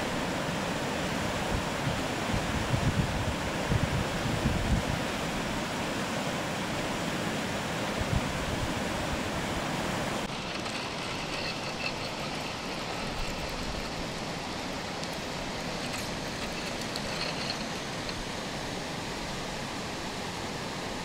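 Steady outdoor rushing noise of wind and moving water, with wind buffeting the microphone in low gusts during the first few seconds. About ten seconds in the sound changes abruptly to a duller, slightly quieter hiss.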